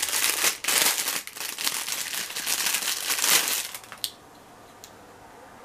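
Clear plastic packaging bag crinkling loudly as it is opened and a set of measuring spoons pulled out, stopping about four seconds in; after that only a few faint clicks.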